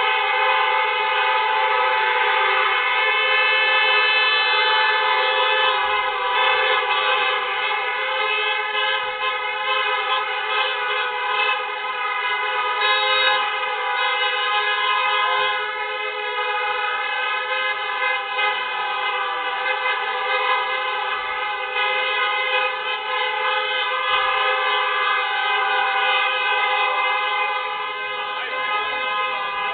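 Several car horns held down together, sounding without a break as one steady, many-pitched chord.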